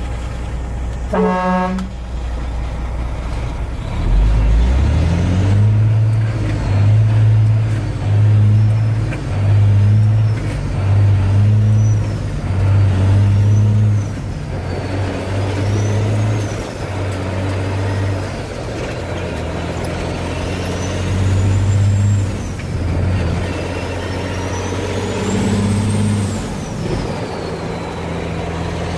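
Detroit Diesel 60 Series 12.7-litre engine heard from inside the truck's cab, pulling as the driver works through the gears of the 18-speed Eaton Fuller Road Ranger transmission. A brief horn-like toot comes about a second in. The engine note climbs at about four seconds, then swells and drops about once a second for several seconds before settling to a steadier drone.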